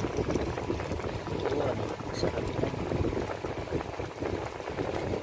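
Pot of lechon paksiw bubbling steadily as it simmers, a continuous crackle of small bubbles popping in the sauce.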